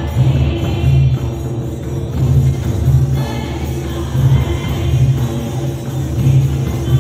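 A chorus of women singing a hymn in unison, accompanied by a steady beat on laced barrel hand drums, one of them a large clay-bodied mandar.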